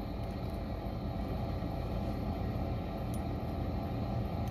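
Steady low mechanical hum, with one faint tick about three seconds in as metal tweezers work thread at the needle.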